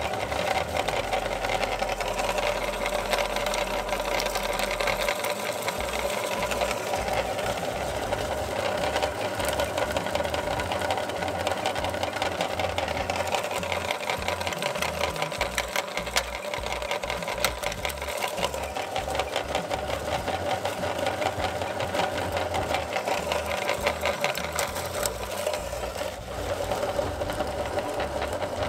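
Electric meat grinder running steadily while grinding hard lollipop candy: a constant motor hum with many small clicks and crunches as the candy is crushed to powder.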